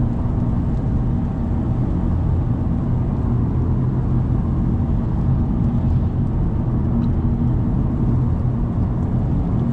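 Car driving at a steady speed: a continuous low engine hum and road drone with no change in pitch.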